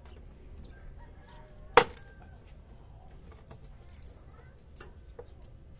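One sharp metal clank about two seconds in, from a wrench at the motorcycle's engine oil drain plug. Faint bird calls and small clicks sound in the background.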